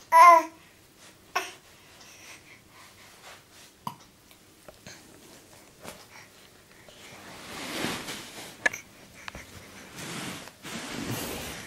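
A toddler's brief high-pitched squeal, followed by a few small knocks, then breathy huffs of a toddler breathing close to the microphone for the last few seconds.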